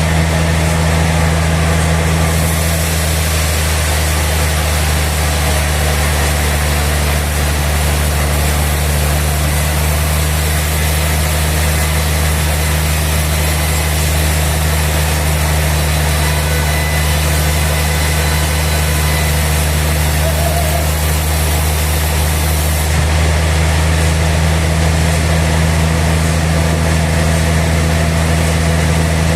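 Sawmill machinery running steadily with a deep, even hum. It carries a brighter hiss from about two seconds in until near the end.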